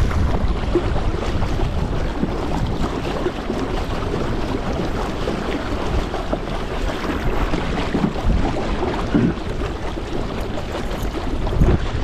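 Water rushing and splashing along the hull of a fishing kayak moving quickly across a lake, with wind buffeting the microphone.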